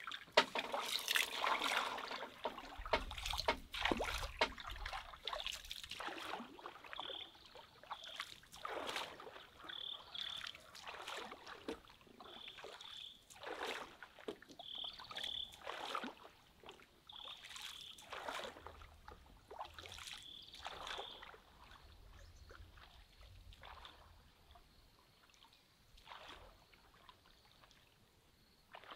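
Bamboo pole dipping and pushing through lake water as a bamboo raft is poled along: a swirl and splash every two seconds or so, fading in the second half as the raft moves off. Short high chirps come in pairs through the middle.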